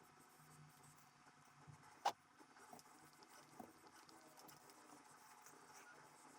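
Near silence with faint small ticks and taps, and one sharp click about two seconds in.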